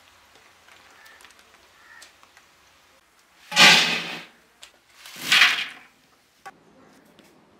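Crisp fried raw banana pieces tipped from a large strainer ladle into an aluminium colander, twice, each a short rattling rush about a second and a half apart, followed by a single sharp tap.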